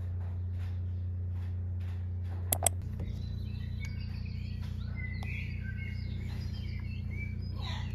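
Small birds chirping over a steady low hum, with two sharp clicks about two and a half seconds in; the chirping sets in just after the clicks.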